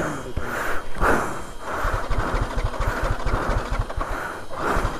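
A motorcycle engine idling with an even low putter. Over it runs a hiss that swells about twice a second.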